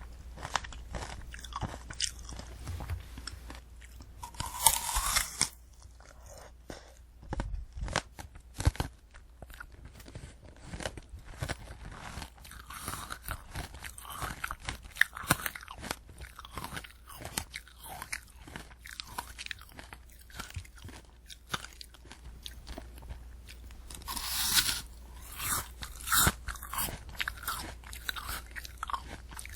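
Close-miked chewing of a candy apple: the hard red sugar-candy shell crunching and the crisp apple flesh being bitten and chewed in a steady run of crunches. Two louder, longer crunches come about five seconds in and again a few seconds before the end.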